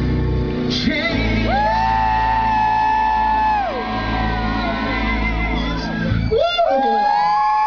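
Live male vocal over an amplified backing track, with long held notes that slide in pitch. The backing music stops about six seconds in and the voice carries on alone.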